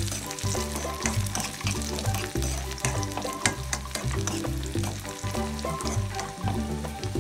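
Cashews frying in hot ghee in a pan, a steady sizzle full of small crackles. Background music with a stepping bass line plays throughout, as loud as the frying or louder.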